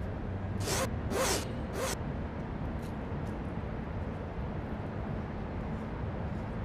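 Duffel bag zipper pulled open in three quick strokes about a second in, over a steady low background rumble.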